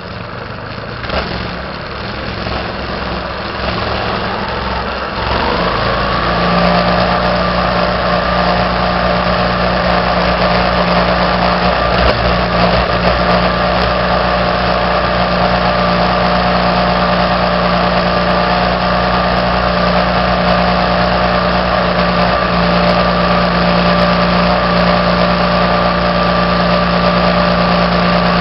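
Small minibike engine running under way, speeding up about five seconds in and then holding a steady note at cruising speed.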